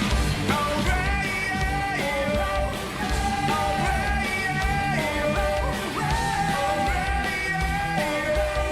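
Rock band playing live with drums, bass and guitar: a steady beat under a melody of long held notes.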